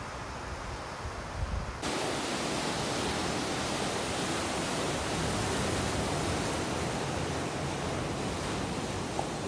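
Sea surf breaking against a concrete tetrapod breakwater, a steady even noise. For the first two seconds it is fainter under low wind buffeting on the microphone, then it switches abruptly to louder, fuller surf.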